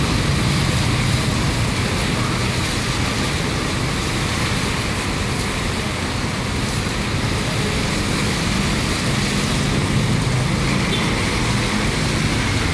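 Steady traffic on a rain-wet city street: cars and motorbikes passing, their tyres hissing on the wet road over a constant low rumble.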